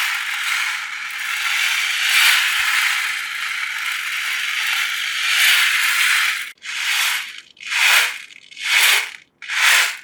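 Ocean drum: beads rolling across the drumhead as the drum is tilted, a continuous wave-like rushing that slowly swells and ebbs. About six and a half seconds in, it turns into short separate swooshes roughly once a second as the drum is rocked quickly back and forth.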